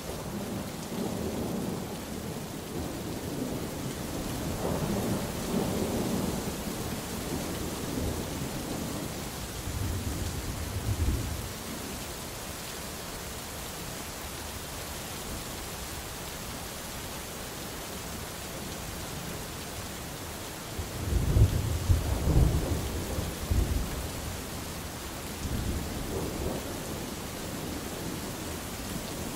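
Steady rain with rolling thunder: a long rumble through the first ten seconds or so, then mostly rain, then a louder, sharper thunder rumble a little past two-thirds of the way through.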